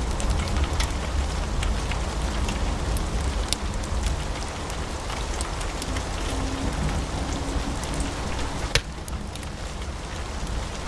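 Wood fire burning in a fireplace: a steady low rush of flames with scattered sharp crackles and pops, one louder pop near the end.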